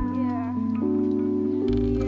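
Background music: a soft track of held notes over a bass line, the bass note changing near the end.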